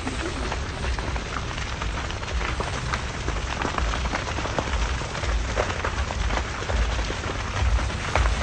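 Large fire burning a truck and roadside vegetation: a steady crackle with frequent sharp pops and snaps over a low rumble.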